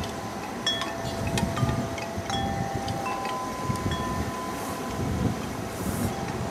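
Wind chimes ringing in gusty wind, several notes of different pitch struck one after another and left ringing, with wind rumbling on the microphone.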